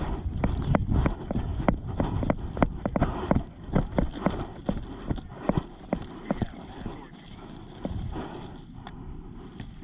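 Footsteps of a player moving quickly over the ground, about three steps a second, thinning out after about six seconds.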